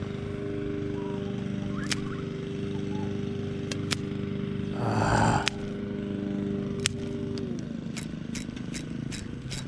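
Steady engine-like hum that drops in pitch and fades about three quarters of the way through, with a scatter of sharp clicks.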